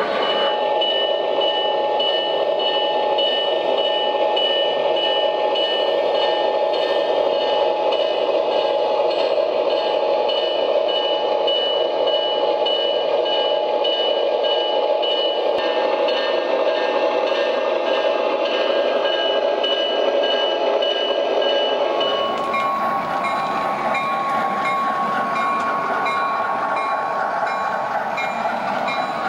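O gauge model trains rolling along the track: a steady rumble of metal wheels and motors with a constant high-pitched tone above it. The sound changes about three-quarters of the way through as a different train passes.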